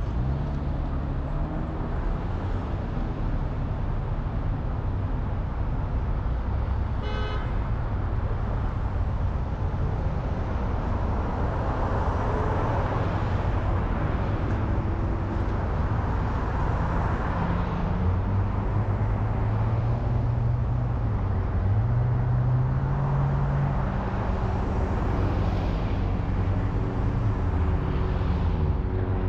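Car driving along a city street: steady road and engine noise, with the engine's pitch rising and falling as it speeds up and slows. A short high-pitched tone sounds about seven seconds in.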